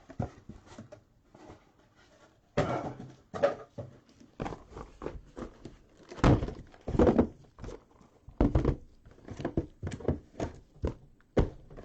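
Cardboard case packaging and card boxes being handled and set down on a table: an irregular string of knocks and thumps, the loudest about six to seven seconds in.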